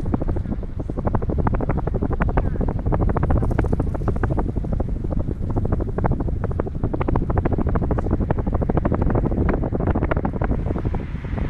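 Wind buffeting the microphone of a camera riding on a moving bicycle, with a dense run of rapid, irregular clicks throughout.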